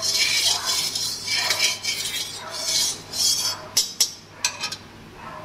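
Long metal spatula scraping and tapping around an aluminium kadai while stirring hot mustard oil, with a few sharp clinks about four seconds in. It goes quieter near the end.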